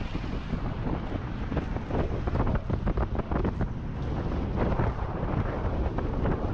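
Wind buffeting a GoPro Hero 7's microphone as an electric scooter rides along: a dense, gusty rumble that rises and falls unevenly.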